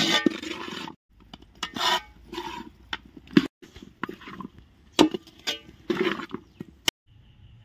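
Metal utensil knocking and scraping against a cooking pan while the chilli chicken is stirred, a string of short clanks and scrapes. It is broken by three brief silent gaps, about a second, three and a half seconds and seven seconds in.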